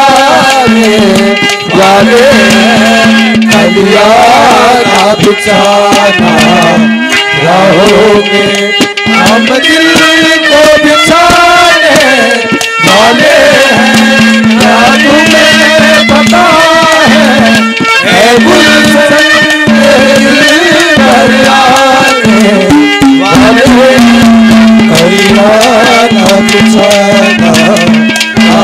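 Haryanvi ragni folk song: a young male voice singing a gliding melody through the PA, over quick hand-drum strokes and a long held steady note from an accompanying instrument.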